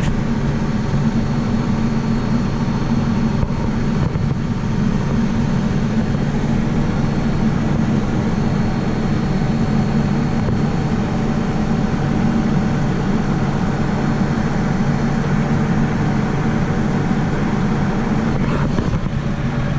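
Tractor engine running steadily at a constant speed, a even low drone with no change in pitch.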